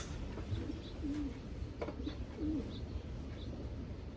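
Racing pigeons cooing: a few short, soft, low coos, with faint high chirps and a single click about two seconds in.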